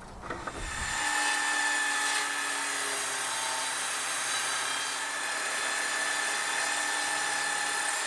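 Evolution RAGE5-S table saw starting after a few clicks, coming up to speed about a second in, then running steadily while its blade rips a 3/4-inch wooden board lengthwise at an angle. Its pitch sags slightly under the load of the cut.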